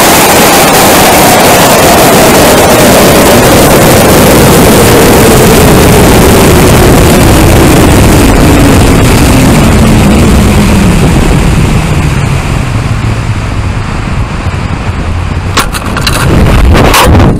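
Onboard sound of a high-power rocket climbing and coasting: a loud rush of air over the airframe with a whistle that falls steadily in pitch as the rocket slows. The rush eases off after about eleven seconds, and a few sharp knocks come near the end.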